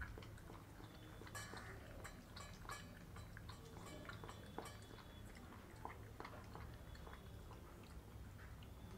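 Golden retriever puppy eating from a stainless steel bowl: faint chewing with scattered small clicks and ticks as it works at the food against the bowl.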